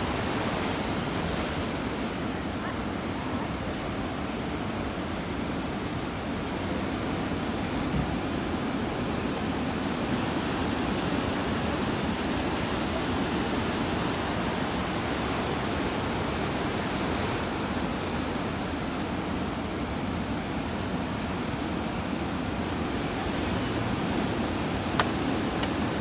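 Big ocean surf breaking and white water washing toward shore: a steady, unbroken rush of water noise.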